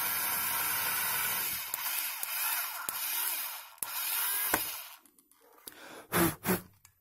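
Electric drill boring a hole through the thin aluminium back of a tablet, running steadily at first, then with its pitch wavering for a few seconds before it stops about five seconds in. Two short, loud bursts of sound follow near the end.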